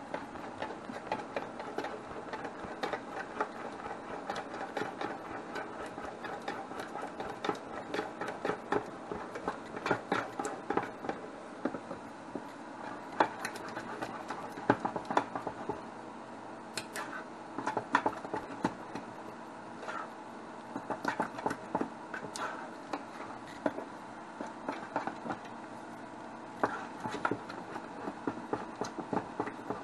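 A utensil stirring thick starch batter fast in a stainless steel pot, with quick, uneven clicks and scrapes against the pot over a steady hum.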